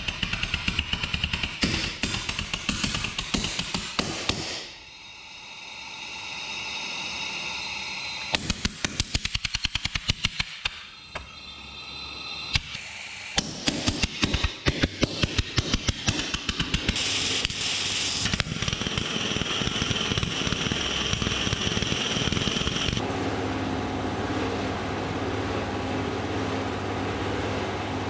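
Homemade pulse detonation engine feeding a rotary tip-jet turbine, firing in bursts of rapid, sharp detonations. Between the bursts there is a steady hiss. In the last third it settles into a steady rushing noise.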